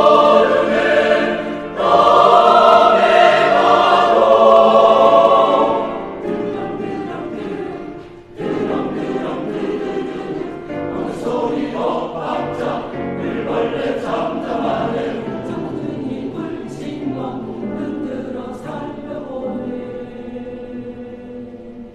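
Choir singing: loud held chords for the first six seconds, a brief break about eight seconds in, then a quieter passage of quick, short syllables.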